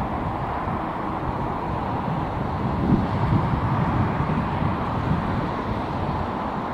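Airbus A350 on final approach with its gear down, passing low overhead: steady jet noise from its Rolls-Royce Trent XWB turbofans, with wind buffeting the microphone.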